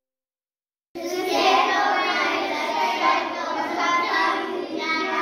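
Silence for about a second, then a group of children singing together.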